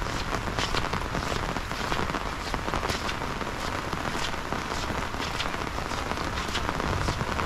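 Heavy rain falling steadily, with many close drops landing in sharp little taps over the even hiss of the downpour.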